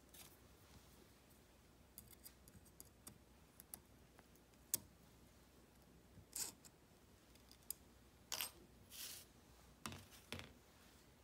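Faint clicks of snap ring pliers working a snap ring off the end of a transmission cluster shaft, with one sharper metallic click a little under five seconds in. Near the end come a few short scrapes and clatters of tools on the workbench.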